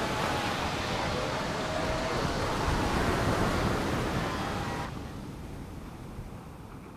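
Heavy surf breaking on a rocky shore, a dense rushing wash of water that drops abruptly to a quieter, gentler wash of sea about five seconds in.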